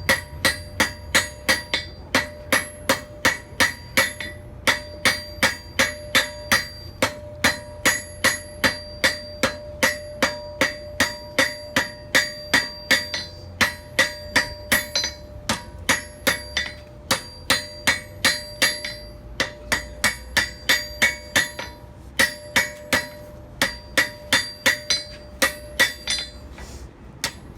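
Blacksmith's hammer striking hot steel on an anvil in quick, even blows, about three a second, with the anvil ringing after each strike and a few brief pauses. The hammering is setting a forge weld.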